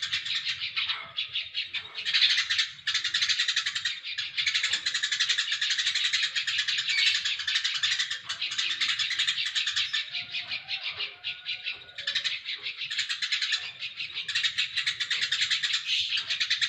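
Eurasian tree sparrow singing a long, rapid run of chirps, with a few brief pauses.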